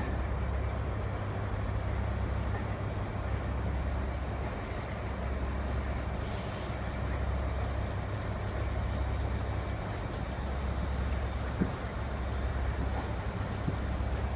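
Caledonian Sleeper coaches rolling past on the platform road, a steady low rumble of wheels on rail, with a single sharp clack near the end.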